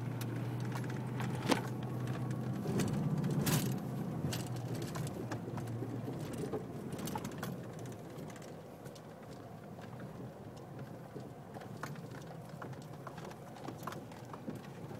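Pickup truck driving off-road over rough desert dirt, heard from inside the cab: a steady engine hum, strongest in the first few seconds and then easing off, with scattered rattles and knocks from the cab as it bounces.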